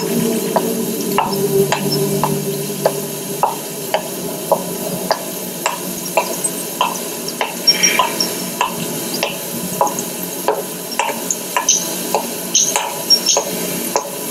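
Steady rain hiss with high-heel footsteps clicking on wet pavement at a walking pace, nearly two steps a second.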